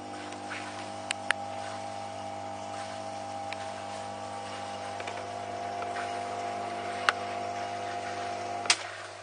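Bubble Magus protein skimmer running: a steady hum with several tones from its pump, broken by a few sharp clicks. Near the end a louder click comes, after which the higher tones drop out and only a low hum remains.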